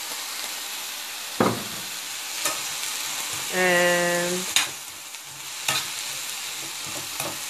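Chopped vegetables sautéing and sizzling in a stainless steel skillet as they are stirred, with several short clicks of the utensil against the pan. A brief steady hum, like a voice's "mmm", comes about halfway through.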